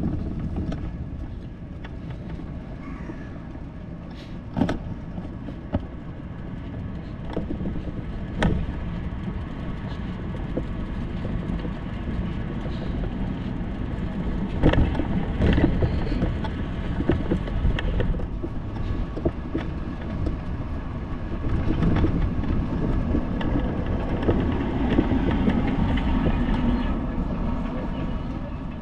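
Steady road and traffic noise during a bicycle ride, broken by a few sharp knocks or rattles, growing louder in the last few seconds.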